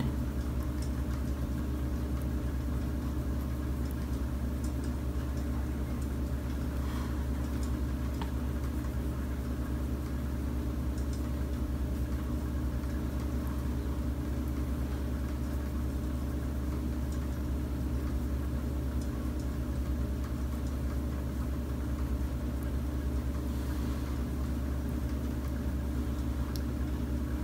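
A steady low hum that holds an even level without change, with a few faint ticks over it.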